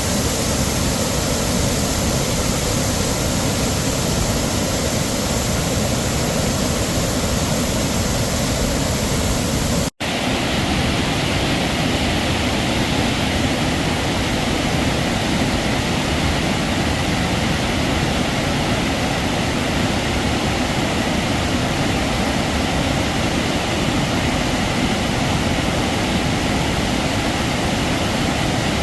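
Heavy waterfall: a steady roar of falling water. About ten seconds in it cuts out for a split second and comes back slightly brighter.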